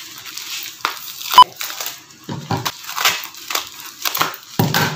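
Scissors cutting open a plastic delivery pouch: an irregular run of snips and plastic crinkling, with one sharp, loud click about a second and a half in.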